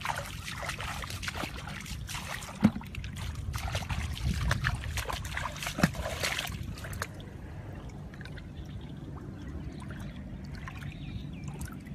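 Shallow muddy water splashing and trickling, with two sharp knocks, one a little before three seconds in and one near six. The splashing dies down about seven seconds in, leaving a low rumble.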